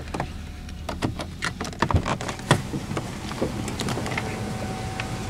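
Clicks, knocks and rustling as someone climbs out of a car holding the camera, over a low steady hum. A steady tone comes in about two seconds in and keeps going.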